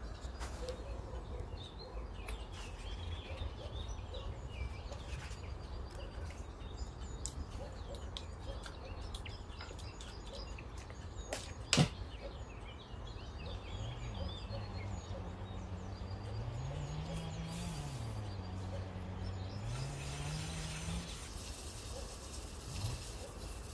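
Steady low background rumble with faint bird-like chirps in the first half and one sharp click about halfway through. Later a low hum rises and falls for several seconds. Near the end a sponge scrubs the soapy pan with a rasping hiss.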